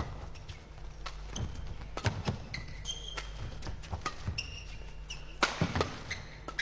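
Badminton doubles rally: rackets hit the shuttlecock in a quick run of sharp cracks, the loudest pair a little before the end. Short high squeaks of shoes on the court floor come in between.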